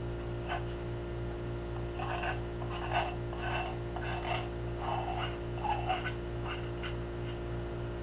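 X-Acto knife blade scraping the mold seam line off a wet doll head of soft-fired porcelain greenware: short, irregular scratchy strokes, denser a couple of seconds in.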